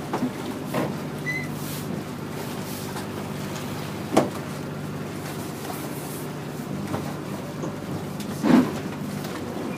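Outrigger boat's engine running steadily under way, with wind and water noise. A few short knocks stand out, the loudest about four seconds in and near the end.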